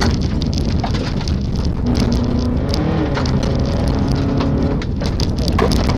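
Rally car engine running hard on a gravel stage, heard from inside the cabin, with loose gravel crackling and pinging against the car's underside.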